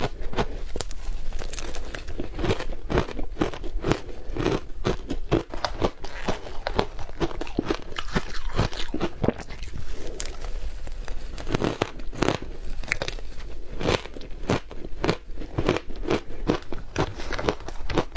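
Close-miked crunching and chewing of yellow powdery snow-like ice: a continuous, irregular series of crisp crunches, a few a second, as mouthfuls are bitten and ground between the teeth.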